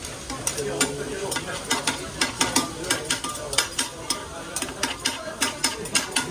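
Metal spatulas chopping and scraping monjayaki on a hot teppan griddle over a steady sizzle. The sharp clacks come several times a second and grow busier from about two seconds in.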